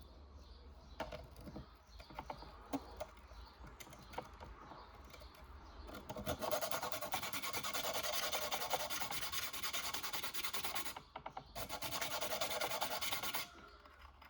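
Small abrasive sharpening stone rubbed against the metal prongs of a pole spear's three-prong paralyzer tip: a few light scrapes and taps at first, then about five seconds of continuous rapid rasping strokes, a brief pause, and two more seconds of rasping.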